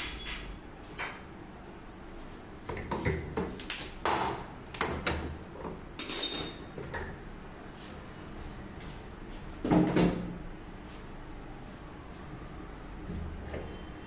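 Clicks, knocks and clatter of hand work on a top-load washing machine's belt drive and gearbox assembly, with one louder thump about ten seconds in.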